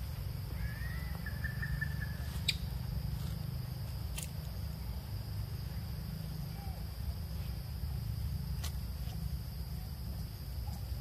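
Outdoor forest background: a steady low rumble and a steady high hiss, with one short high chirp about a second in and a few sharp clicks.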